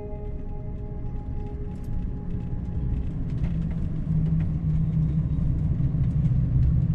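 A vehicle's low engine and road rumble, growing louder, most likely the couple's Ram ProMaster camper van on the move. Background music fades out in the first couple of seconds.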